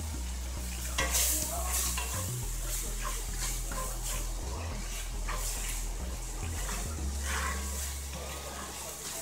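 A wooden spatula stirs and scrapes sauce-coated vegan pulled pork around a cast-iron skillet over a steady sizzle, with several sharper scrapes against the pan at irregular moments.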